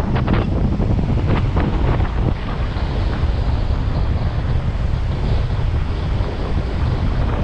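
Heavy wind buffeting on an action camera's microphone at downhill speed, over the steady rolling noise of longboard wheels on asphalt, with a few sharp ticks in the first couple of seconds.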